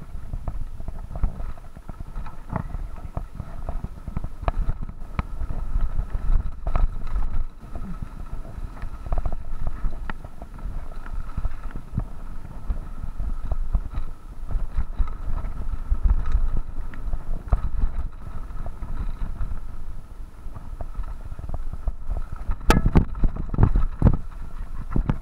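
Mountain bike rattling and jolting down a rough trail of rock and dry leaves, picked up by a camera mounted on the handlebar, with wind rumbling on the microphone. A run of harder knocks comes near the end.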